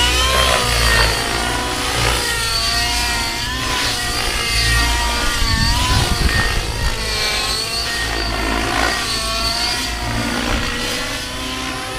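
Align T-Rex 700N radio-controlled helicopter in 3D aerobatic flight. Its two-stroke nitro engine and rotors whine continuously, the pitch rising and falling again and again as it flips and tumbles overhead.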